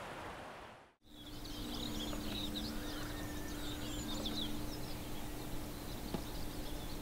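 A steady rushing noise cuts off about a second in. After it, small birds twitter in a quick run of high chirps for about three seconds over a steady low hum and hiss.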